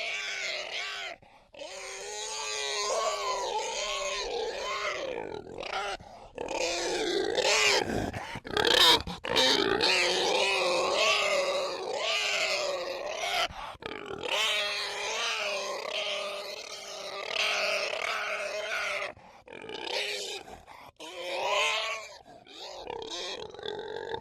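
Pig grunting and squealing, one call after another with short breaks, loudest about eight to nine seconds in.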